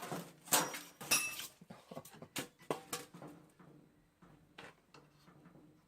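Clicks and knocks from handling a compact mitre saw as its head lock is released, with a short metallic clink about a second in and quieter taps after.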